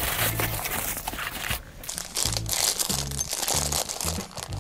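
Background music with a repeating bass line, over the crinkling of thin plastic packaging bags being handled.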